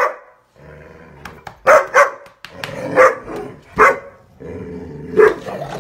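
Large dogs barking, about five loud barks at uneven intervals, during rough play around a person.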